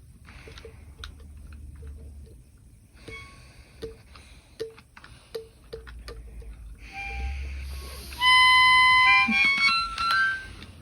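A clock ticking steadily. Near the end comes a few musical notes: one loud held high note, then several short notes stepping up and down in pitch.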